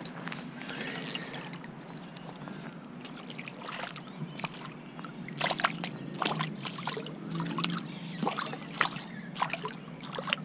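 Water splashing and sloshing beside a kayak's hull as a hooked bream thrashes at the surface, with a run of short, sharp splashes in the second half.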